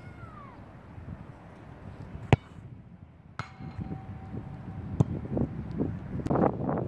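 A football kicked hard about two seconds in, then a second later a sharp clang as it strikes the goal's metal crossbar, which rings on with a steady tone for over a second. A few softer knocks follow near the end.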